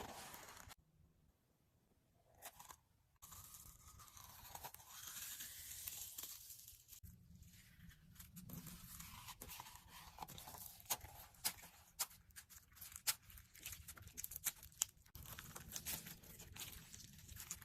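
Slime being squeezed and poked, giving quiet crunchy crackles and many small clicks and pops. The sound drops to near silence for about two seconds near the start, then resumes.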